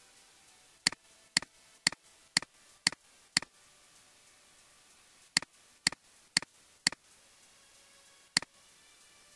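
Computer mouse button clicking: six sharp clicks about half a second apart, then after a pause four more at the same pace, and a single last click near the end, each click followed by a fainter second tick.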